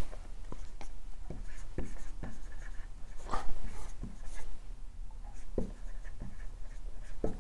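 Dry-erase marker writing on a whiteboard: a string of short, separate scratching strokes as letters are drawn out, with a slightly louder stroke about three and a half seconds in.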